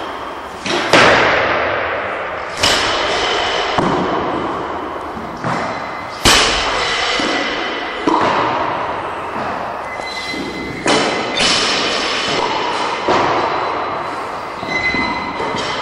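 Barbells loaded with bumper plates being dropped onto lifting platforms: about eight heavy thuds at irregular intervals, each with a clanging metallic ring from the bar and plates and a long echo of a large hall. The loudest comes about six seconds in.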